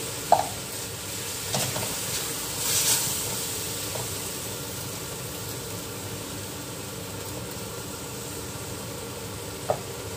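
A plastic spatula stirring a milky chicken-and-mushroom sauce in a metal wok, with a steady sizzle as the liquid heats toward a boil. Sharp knocks of the utensil against the wok about a third of a second in and near the end, and a brief scraping swish around two to three seconds in.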